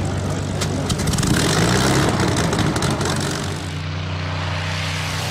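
Supermarine Spitfire's V12 piston engine running steadily just after start-up, with flames from the exhaust stacks. Crackles sound between about one and three seconds in, and the sound turns duller about four seconds in.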